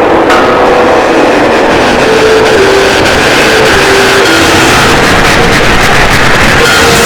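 Loud, heavily distorted breakcore noise music: a dense, unbroken wall of noise with a few short held notes stepping down in pitch through the middle of it.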